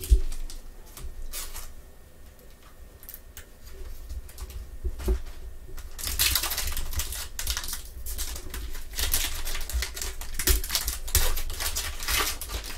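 Foil trading-card pack wrapper being torn open and crinkled in gloved hands: a dense crackle that starts about six seconds in. Before that, sparse soft clicks and rustles as cards are handled.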